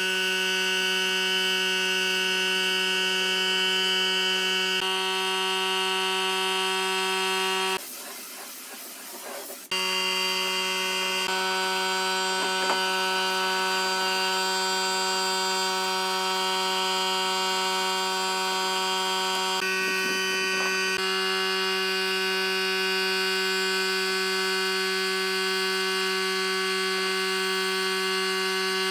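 Power tool's electric motor running steadily at one constant pitch, dropping away for about two seconds around eight seconds in before coming back.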